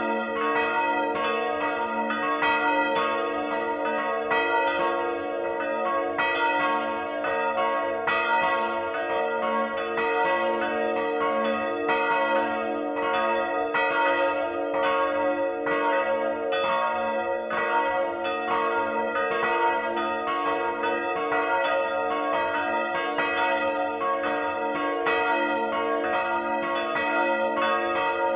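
Several large church bells swinging and ringing together, heard close up from inside the belfry. Their clappers strike over and over, and the strikes overlap into a continuous, steady peal.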